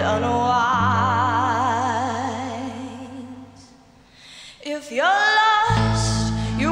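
A woman singing over a band, holding a long note with wide vibrato that fades away about four seconds in. She then comes back with a note that slides upward, and the band's low bass returns loudly near the end.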